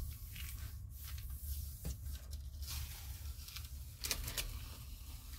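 Hands rubbing tissue paper pressed onto a gel printing plate, then the tissue peeled off the tacky acrylic paint with a papery rustle about four seconds in, over a steady low hum.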